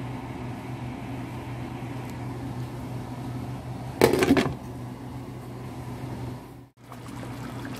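Steady low hum of a kitchen fan, with a brief loud rush about four seconds in as liquid is poured from a bottle into the pot of raw spiced chicken.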